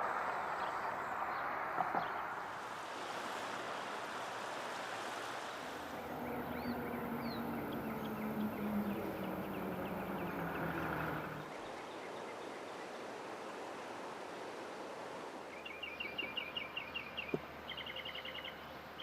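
Outdoor ambience with a steady rushing hiss at first. An engine runs for about five seconds midway, its pitch wavering, then cuts off. Birds chirp in quick repeated trills near the end.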